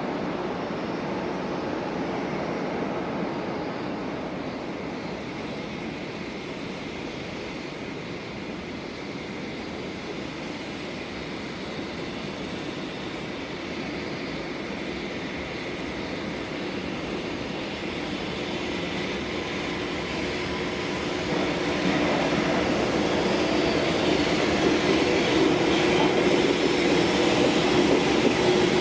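Electric-hauled freight train approaching: a steady rumble with a faint hum, growing louder from about two-thirds of the way in as the train nears.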